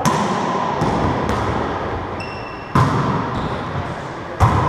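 A rubber wallyball being struck by hands and rebounding, a series of sharp smacks. The loudest come near three seconds and near the end, each ringing on in the echo of the enclosed racquetball court. A brief high squeak comes a little past two seconds.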